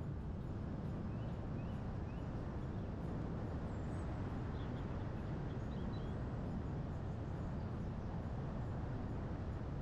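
Steady rumble of wind and road noise from a moving car, with faint bird chirps a few times, near the start and around the middle.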